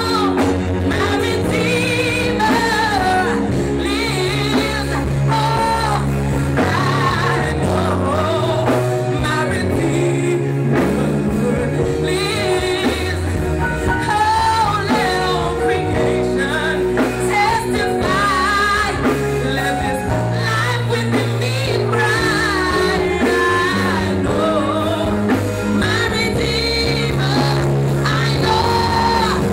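A woman singing a gospel song into a microphone, her voice amplified, over instrumental accompaniment with a steady bass line.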